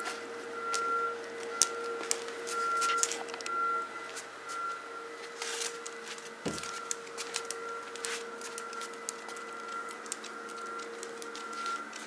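Dog's claws clicking and tapping on a tile floor as it gets up off the mat and walks about, with rustling and a dull knock close to the microphone about halfway through.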